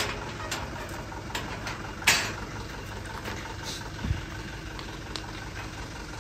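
Vehicle engine running steadily at low speed, with a short hissing burst about two seconds in.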